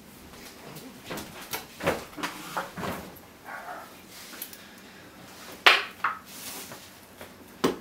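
Handling noise as a rifle sling with clip attachments is brought in and laid across a rifle on a wooden desk: a scatter of light clicks, rattles and knocks, with one sharper click about three-quarters of the way through.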